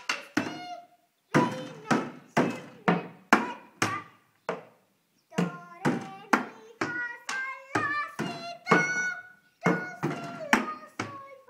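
Improvised playing on tuned percussion: irregular struck notes, each a sharp hit followed by a short ringing pitched tone, the pitch changing from stroke to stroke. The notes come faster in a run near the middle, after a brief pause.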